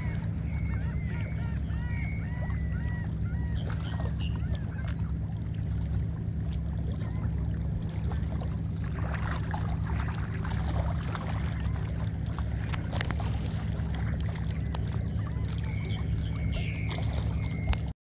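A flock of seabirds resting on the water calling, with a quick run of short repeated calls at the start and more calls near the end, over the steady low drone of a boat motor.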